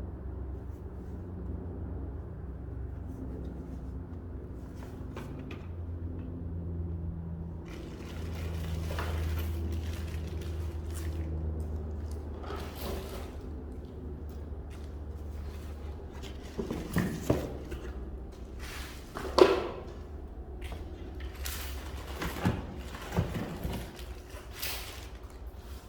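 A steady low hum, then a string of knocks and clatter from about two-thirds of the way in, the loudest about three-quarters of the way through: objects being handled and set down.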